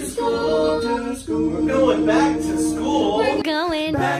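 A cappella vocal group of women's and men's voices holding sustained wordless chords, changing chord about a second in. Near the end one voice sings a wavering line with wide vibrato.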